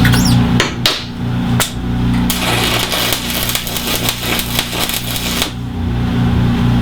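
Steel bench-leg parts being handled and knocked into position: two sharp metal knocks, then about three seconds of dense rattling and clattering, over a steady low hum.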